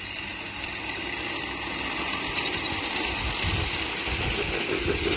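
Model diesel train running along an outdoor garden-scale track, its electric motor humming and its wheels running on the rails, growing louder as the train approaches and passes.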